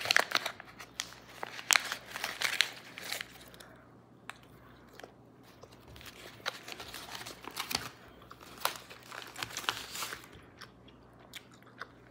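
Crinkly plastic pouch of Big League Chew shredded bubble gum rustling and crackling as gum is pulled out and the pouch is handled, in two dense bursts, over the first few seconds and again from about six to ten seconds in. Softer chewing ticks near the end.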